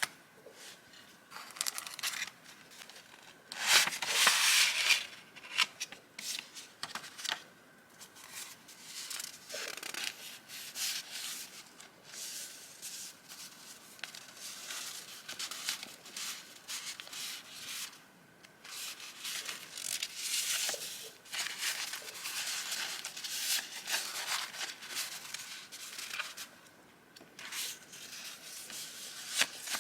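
Sheets of vintage paper and paper journaling items being handled, rustling and rubbing in irregular strokes. The loudest is a longer rustle about four seconds in.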